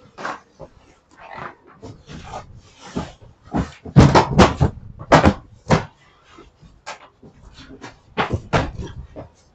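Bales wrapped in woven plastic sacks rustling and thudding as they are shoved into place and trodden down. There is a run of sharp crinkles and thumps, loudest about four seconds in, just after five seconds, and again around eight and a half seconds.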